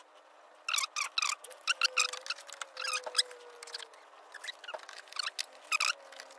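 Plastic push-tab clips squeaking as they are worked out of the wheel-well trim: a series of short, high squeaks.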